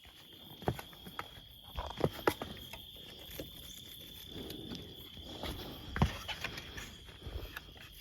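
Footsteps on a forest path, irregular and scattered, over a steady, unbroken high-pitched insect drone.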